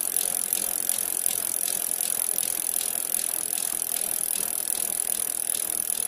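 Bicycle wheel spinning freely, its hub ticking rapidly and steadily over a high hiss.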